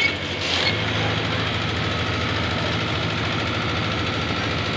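Komatsu 405A motor grader's diesel engine running at a steady, even pitch as the machine works forward spreading aggregate: a constant low drone.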